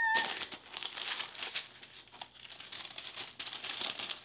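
Paper packaging crinkling and rustling as a gift box is unwrapped by hand, dying away near the end.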